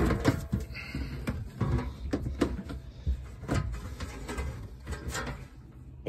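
Aluminium storage box being handled and opened: a string of irregular metallic clicks and knocks over a low rumble.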